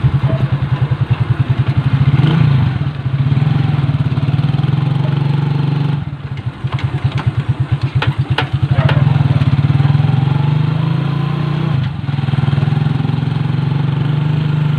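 Small motorcycle engine running steadily under way, easing off briefly twice.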